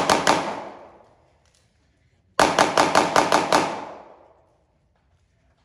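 Glock pistol fire in two rapid strings: the last few shots of one string at the very start, then about eight shots in quick succession about two and a half seconds in, each shot ringing on in a reverberant echo.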